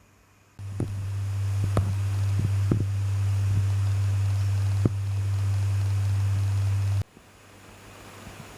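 A steady low hum with a hiss behind it and a handful of sharp knocks and clicks. It starts suddenly about half a second in and cuts off suddenly about seven seconds in, leaving a fainter hiss.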